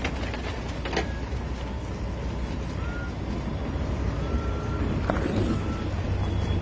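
An engine running steadily with a low rumble, with a couple of short knocks and a few brief high tones over it.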